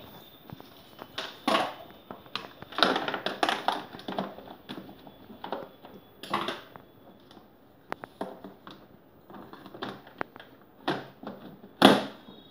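Hard plastic knocking, creaking and rattling as a ride-on toy car's moulded plastic seat is set and pressed into its plastic body, in uneven bursts with sharp clicks. A louder knock comes near the end.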